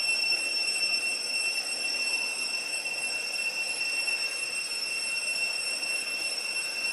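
Cicadas droning steadily: a continuous high-pitched buzz that holds one pitch without a break.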